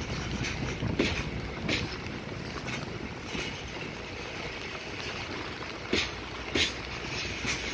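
Freight train's container flatcars rolling past with a steady rumble, the wheels clacking over rail joints in pairs, twice: about a second in and again near the end.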